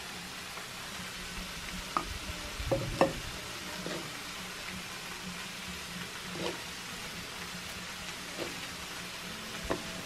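Steady sizzle of food frying on a comal, with a few light knocks and scrapes of a spoon against a stone molcajete and a clay dish as salsa is spooned onto tacos. The loudest knocks come about three seconds in.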